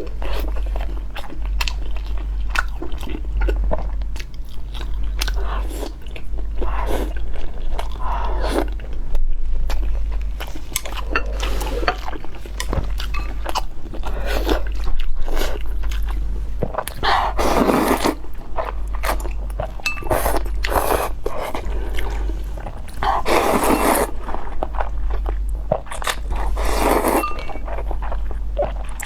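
Close-miked eating: a person biting and chewing food with wet mouth clicks and crunching, several louder crunchy bites in the second half, over a steady low hum.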